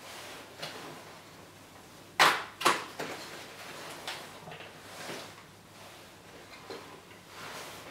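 A folded paper leaflet being handled and unfolded, making crackling paper rustles, with two loud sharp snaps about half a second apart a little over two seconds in.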